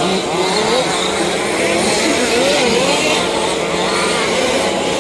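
Several 1/5-scale petrol RC cars racing, their small two-stroke engines revving up and easing off over and over, with overlapping whines rising and falling in pitch.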